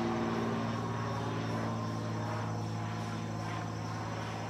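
Cessna 182's piston engine and propeller droning overhead, a steady low hum that slowly fades as the plane flies away.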